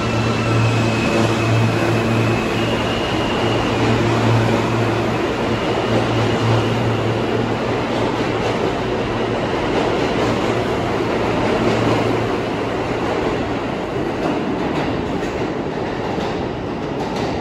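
New York City subway train moving through the station: a steady loud rumble of wheels on rail, with a low electric hum that stops about three-quarters of the way through.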